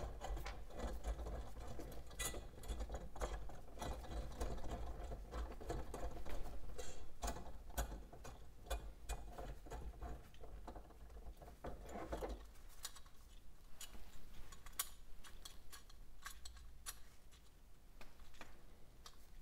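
Light scattered clicks and taps of small metal parts, nuts, bolts and the steel bracket, being handled and fitted by gloved hands as a clutch band brake is assembled on a workbench. A low steady hum underneath stops about two-thirds of the way through.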